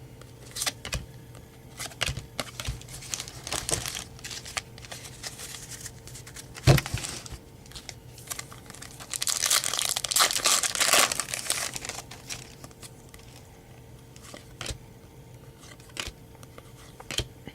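A baseball card pack's wrapper being torn open and crinkled, with cards handled in between; the loudest stretch of crinkling comes about nine to twelve seconds in.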